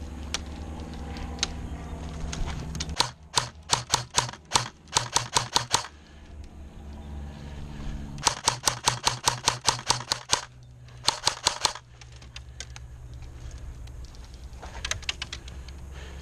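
Airsoft gun firing in rapid strings of sharp clicking shots, about five or six a second. There are several bursts: a long run a few seconds in, another in the middle, a short one after it, and a few faint shots near the end.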